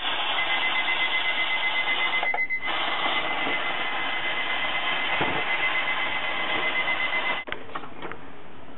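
Steam hissing hard out of a stainless-steel pressure cooker's release valve as the pressure is let down, with a steady high whistle through the hiss. It breaks briefly about two and a half seconds in, then cuts off suddenly with a click near the end, once the pressure is gone.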